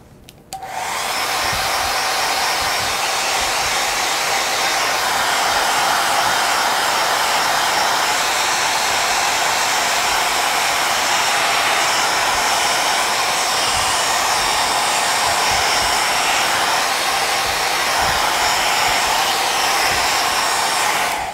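Handheld blow dryer running steadily on high, blowing over freshly painted glass to dry the paint; it switches on about half a second in and shuts off near the end.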